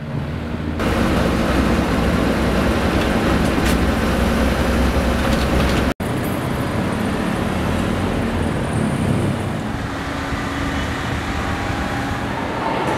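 Road traffic on a city street: a steady rumble of car engines and tyres. It cuts out for an instant about six seconds in, then carries on a little quieter.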